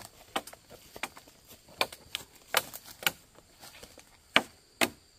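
Wood being chopped by hand with a blade: a run of irregular, sharp chopping strikes at about two a second, the loudest a little after four seconds in.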